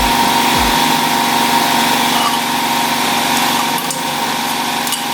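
Air plasma cutter running, a steady rushing hiss with a steady whine under it, and a couple of sharp crackles near the end.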